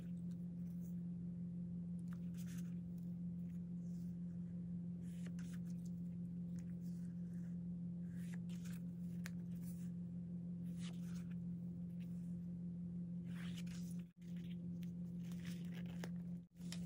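Paper sticker sheets rustling and a sticker being peeled from its backing, in short scratchy rustles over a steady low hum. The sound cuts out briefly twice near the end.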